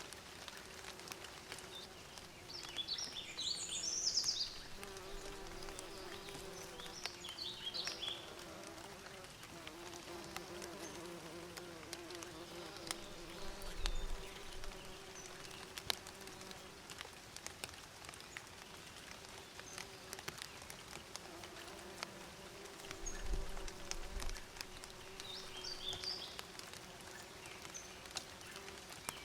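Bees buzzing steadily, with short bursts of bird chirps a few seconds in, around eight seconds and near the end. A couple of brief low thuds come in the middle.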